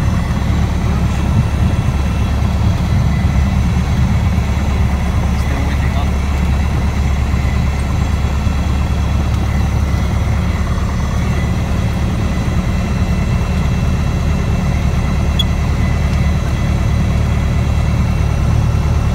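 Light aircraft's engine running steadily, heard from inside the cockpit as a constant low drone.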